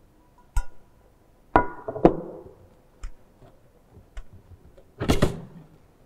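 Stainless-steel test sieves knocked together and set down on a bench: a run of separate metallic clanks with brief ringing, one about half a second in, two louder ones around a second and a half to two seconds, lighter knocks near three and four seconds, and a loud cluster of clatter around five seconds.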